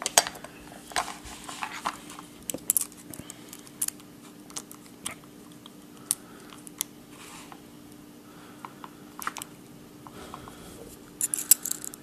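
Handling noise: scattered clicks, knocks and crinkles as a padlock is lifted out of its plastic blister-pack tray and a steel tension wrench and pick are set into its keyway, with a quick run of small clicks near the end.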